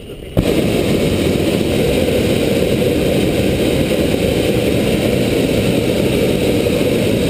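Hot air balloon's propane burner firing to heat the envelope: a sudden loud, steady rushing blast that starts about half a second in and keeps going without a break.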